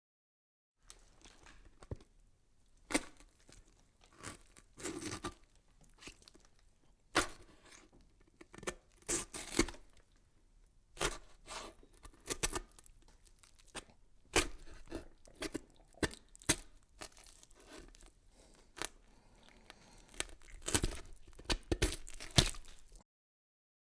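A run of irregular crackles and sharp clicks, some louder than others, starting about a second in and stopping abruptly near the end.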